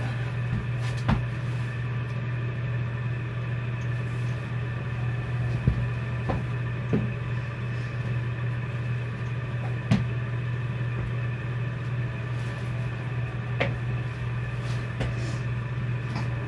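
Steady low electrical hum, with about half a dozen light knocks and clicks scattered through it, as of shoes and boxes being handled and set down.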